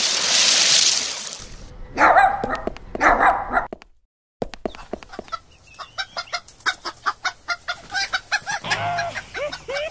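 A short whoosh, then two brief dog barks. After a moment's break, chickens cluck in quick repeated clucks, with longer drawn-out calls near the end.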